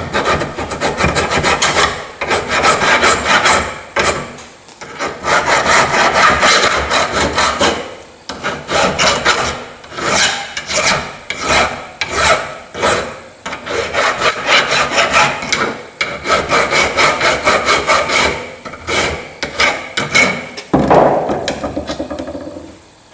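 Rapid back-and-forth rasping strokes of a hand tool working a steel bolt, about two strokes a second, in runs with short pauses. The strokes stop shortly before the end.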